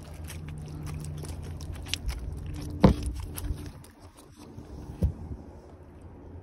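A freshly landed spotted bay bass flopping on gravel and rocks and being grabbed by hand: scattered scuffs and clicks, with a sharp knock about three seconds in and a smaller one about five seconds in.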